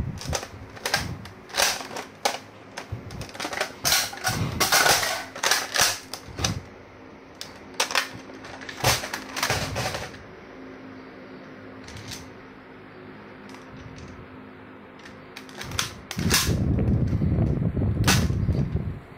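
Nerf foam-dart blasters being handled and switched: a string of sharp plastic clicks and clacks from priming, magazine and trigger, thickest in the first half, then a muffled rustling stretch near the end.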